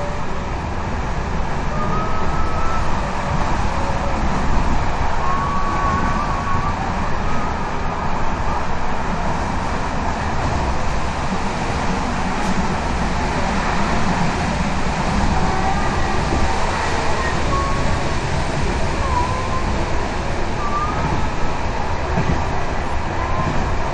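Passenger railway carriage running at speed, heard from inside: a steady rumble of wheels on the track, with short wavering squeals now and then.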